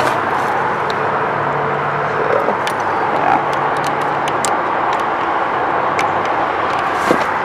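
Steady outdoor road-traffic noise, with a low engine hum that drops away about halfway through and a few light clicks.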